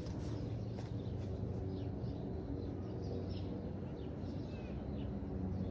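Outdoor ambience: a steady low hum, with a few faint, short bird chirps scattered over it.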